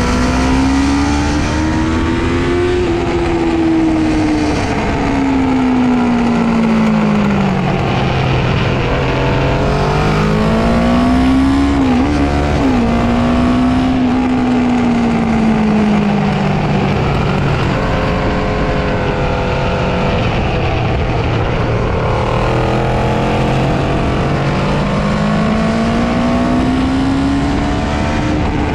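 Honda CB500 parallel-twin engine heard from an onboard mic at track speed, its revs climbing and falling as the rider accelerates, brakes and changes gear, over steady wind and tyre noise. The revs climb at first, drop low for a few seconds, rise again with a quick dip about twelve seconds in, then fall and hold low before climbing again near the end.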